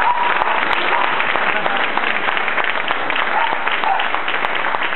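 Audience applauding, with many hands clapping densely and steadily and a few voices mixed in.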